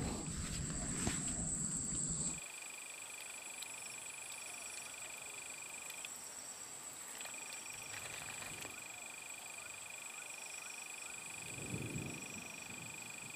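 Chorus of frogs and insects calling: a steady high trill that pauses for about a second midway, with shorter high pulsed calls coming and going. For the first two seconds or so a louder low noise sits under it, then cuts off abruptly.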